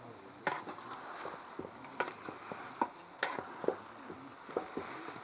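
Wooden spatula stirring fried chicken pieces through a thick coconut-milk masala in a large aluminium pot, with about half a dozen sharp knocks and scrapes of the spatula against the pot at irregular intervals.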